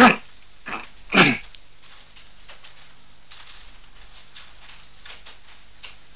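A gravely ill man coughing hard, three harsh coughs in the first second and a half, the first the loudest; he has been coughing up blood.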